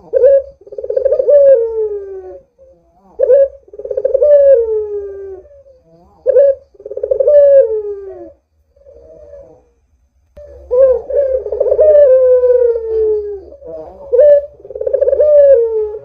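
White Barbary dove (puter) cooing repeatedly, about six calls: each a short sharp note followed by a long rolling coo that falls in pitch, with a brief quieter gap just past halfway.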